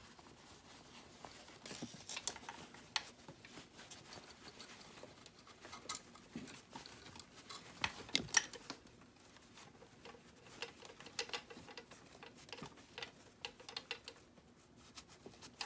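Soft rustling and scratching of cotton fabric worked by hands, with small irregular clicks, as a nose wire is pushed into a stitched channel of a cloth face mask. A few louder scrapes come past the middle.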